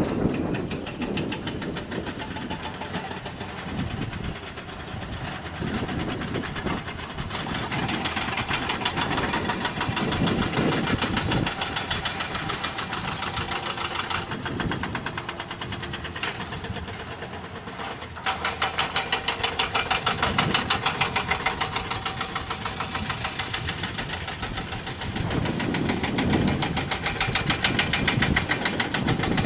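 Heavy truck diesel engine running hard, with a fast clattering beat. It grows louder about two-thirds of the way through and again near the end.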